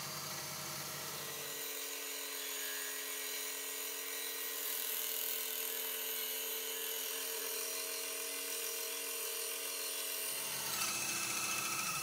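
Benchtop bandsaw running steadily while resawing a block of curly mango wood, a steady whine with a cutting hiss. A deeper hum drops out about two seconds in and comes back near the end.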